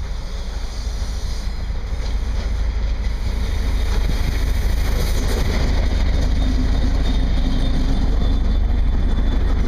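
Diesel locomotive running light, passing close by. Its engine drone and the rumble on the rails grow louder as it approaches, then stay loud as it goes past.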